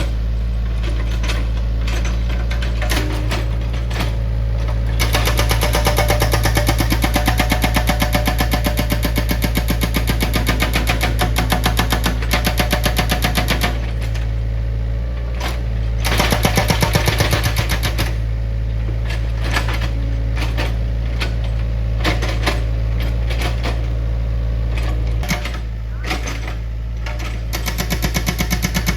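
Heavy equipment's diesel engine running with a steady low drone, with a rapid, even rattling or hammering that comes and goes in long runs.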